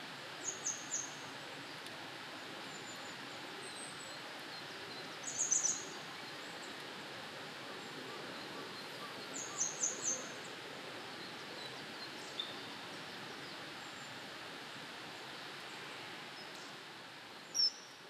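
Common kingfisher giving short, shrill, very high whistled calls in quick groups of three or four, several times, with a louder single call near the end, over a steady background hiss.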